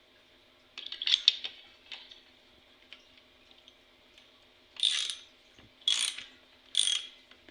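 Ratchet wrench with a spark plug socket clicking in short strokes, turning a new spark plug into a string trimmer's two-stroke engine. A few scattered clicks come about a second in, then three quick ratcheting strokes about a second apart near the end.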